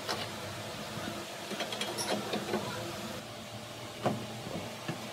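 Steady hum of metal-lathe machinery with a few scattered metallic clinks as the workpiece and lathe parts are handled, and a sharper metal knock about four seconds in.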